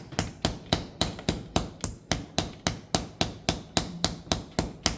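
Rhythmic slapping on a person's bare back, paida (拍打) to raise sha: firm, even slaps at a steady pace of about four a second.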